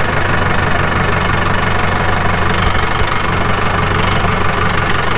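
Farm vehicle engine running steadily, carrying a load of dirt.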